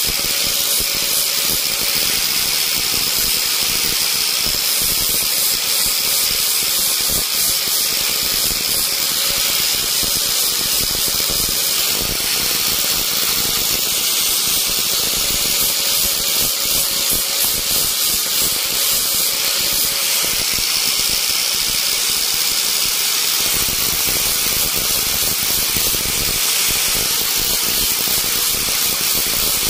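Small high-speed electric carving tool running steadily on wood, a constant whine over a loud hiss.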